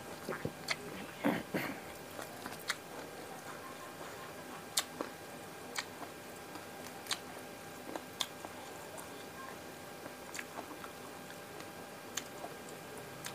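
Chewing and biting on a mouthful of fried tilapia, then scattered sharp crackles, roughly one a second, as fingers pick apart the crisp fried fish.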